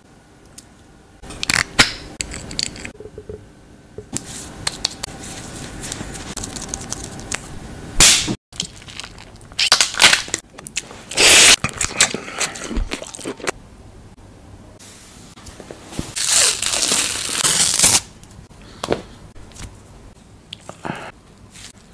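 Close-up handling sounds of face care and food in a series of short bursts: crackles, crunches and scrapes, with a steady rustle early on and a loud hiss lasting about two seconds near the end.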